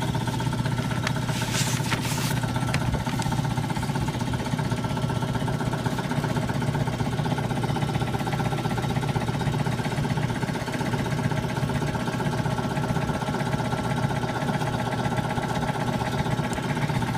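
Steady mechanical drone of blacksmith shop machinery running while the blade heats in the forge, with a brief hiss about a second and a half in.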